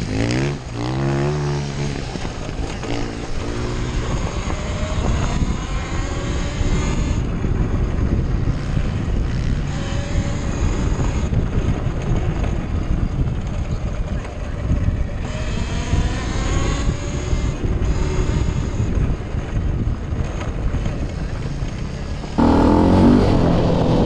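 Single-cylinder four-stroke 400 cc engine of a KTM 400 EXC enduro motorcycle running on a trail ride, its pitch rising and falling repeatedly as the throttle is opened and closed. It gets suddenly louder near the end.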